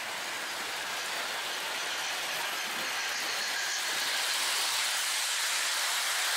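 O gauge model trains running on the layout, led by the N&W 611 model with its passenger cars: a steady rolling hiss of wheels and motors that grows gradually louder as the train comes close.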